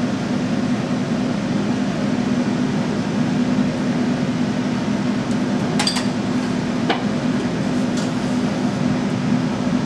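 Steady hum of a kitchen ventilation fan, with three light clinks of utensils, about a second apart, between six and eight seconds in.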